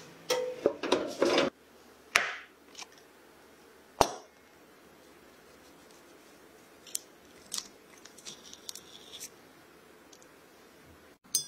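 Metal baking tin rattling and scraping on an oven rack, a noisy scrape about two seconds in and a sharp clack about four seconds in. After that come faint small crackles as a knife cuts into a baked cupcake's crisp top.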